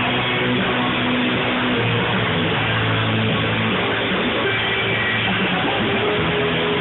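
Band music: strummed guitar over held bass notes, playing continuously at a steady level.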